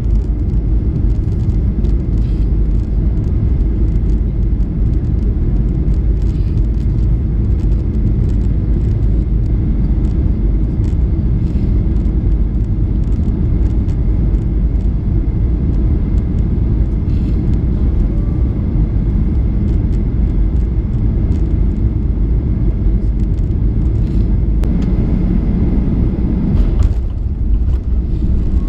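Steady loud rumble of a jet airliner's engines and airflow heard inside the cabin on final approach, with a brief jolt near the end as the wheels touch down on the runway.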